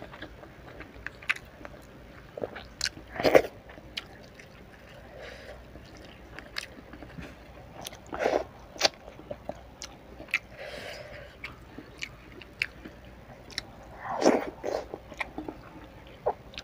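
Close-up mouth sounds of a person eating rice and curry by hand: chewing with scattered wet mouth clicks, and a few louder bites about three, eight and fourteen seconds in.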